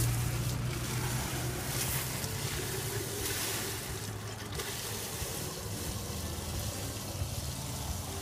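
Water from a garden hose running into a plastic chicken waterer jug as it fills, a steady rush of pouring water. A low hum at the start fades out within the first second.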